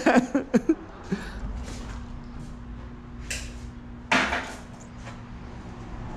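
A few light knocks, then one louder sharp clank about four seconds in, over a faint steady hum.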